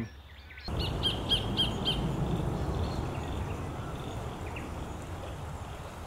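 Sacred kingfisher calling: a quick run of about five sharp, high, squeaky notes starting about a second in, then one fainter note later, over steady low outdoor background noise.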